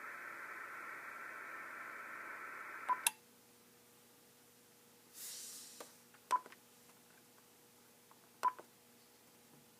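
Icom IC-7000 transceiver's speaker putting out a steady, narrow-band signal with several held tones. It cuts off abruptly with a click about three seconds in. Then come a short hiss and a few sharp button clicks, two of them with a short beep, about six and eight and a half seconds in.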